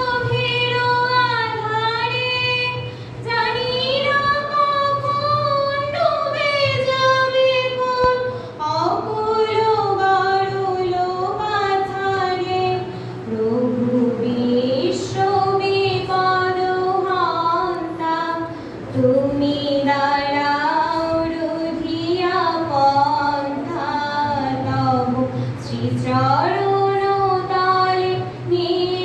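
A girl singing a slow song solo into a microphone, holding long notes in phrases of a few seconds each. A steady low hum runs underneath.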